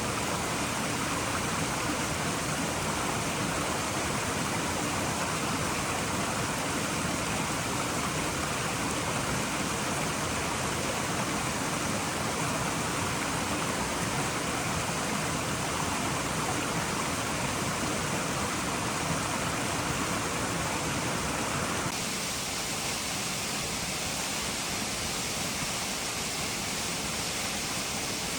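Steady hiss of heavy rain, with no other distinct sound; about three-quarters of the way through it changes abruptly and becomes slightly quieter.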